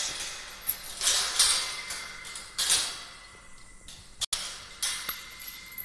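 Metal tube gate and its hanging chain clinking and rattling in several short bursts, with a couple of sharp metallic clicks near the end, as the gate is handled and opened.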